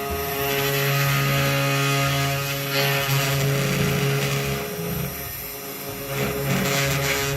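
A power tool running steadily with a constant hum and a high whine of cutting or sanding noise, dipping a little in level about halfway through.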